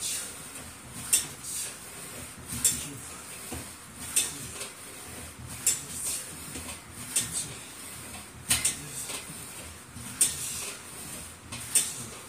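Plate-loaded chest press machine clinking with each repetition: a sharp metallic clink about every second and a half from its hanging weight plates and frame, some of them doubled.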